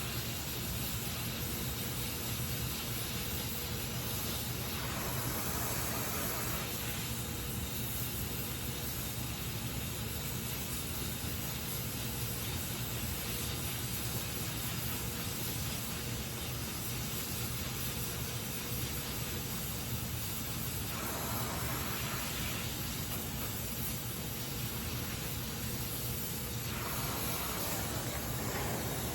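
Gas welding torch flame hissing steadily while flame welding aluminium; the hiss grows brighter and harsher a few times for a second or two.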